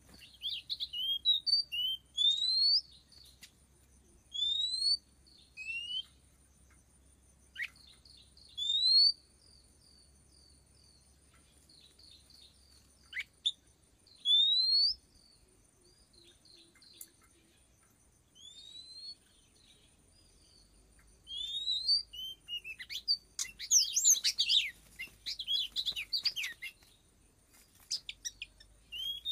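Oriental magpie-robin (kacer) calling: short rising whistles and chirps in scattered bursts, with a dense run of calls near the end, over a faint steady high tone.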